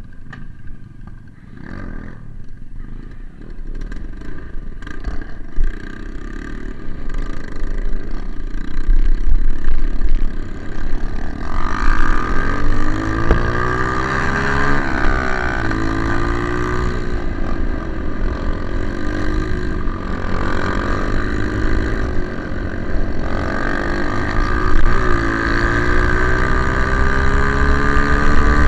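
Single-cylinder four-stroke trail motorcycles running, growing louder about eight seconds in; from about twelve seconds in the engine pitch climbs and drops as the bikes accelerate and shift gears.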